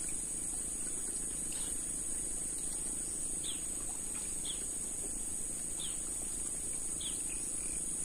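Steady high-pitched drone of insects in swamp forest, with a bird calling over it in five short descending whistled notes spaced a second or so apart.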